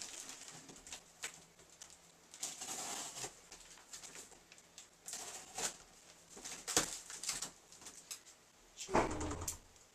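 Cardboard shipping box being opened by hand: scattered rustles, scrapes and crackles of cardboard and packing. About nine seconds in comes a louder thump with a low rumble: a door shutting.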